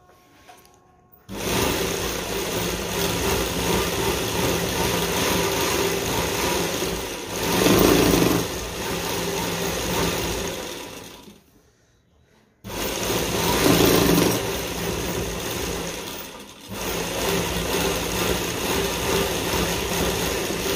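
Sewing machine running in two long stretches: it starts about a second in, stops for about a second a little past halfway, then runs again, speeding up briefly twice. The needle is stitching unthreaded over a gold lace strip that is held back behind the presser foot, so the lace gathers into a curve.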